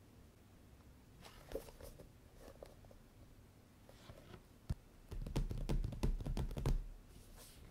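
Hands handling paperback manga volumes: soft rustling and light clicks of paper and covers, then a sharp tap and a run of knocks and deep thuds as the row of books is shuffled and pressed together on a wooden tabletop.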